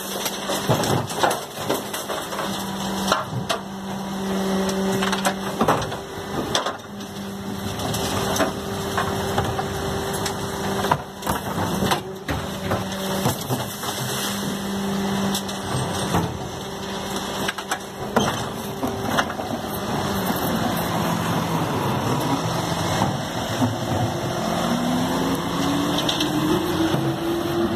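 Geesink GPM III rear-loader compactor on a Mercedes-Benz Econic refuse truck running its hydraulic compaction cycle: a steady hum from the hydraulics with cracking and knocking as general waste is crushed. Near the end a rising note comes in as the engine revs up.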